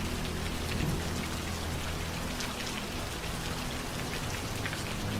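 Steady rain falling, an even hiss of many drops, with a low steady hum underneath.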